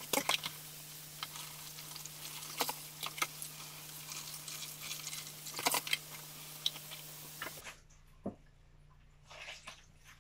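Kitchen tap running into a sink as salted napa cabbage is rinsed in a metal colander, with light clatters of the colander and dishes. The water sound stops suddenly near the end, leaving a few soft knocks over a steady low hum.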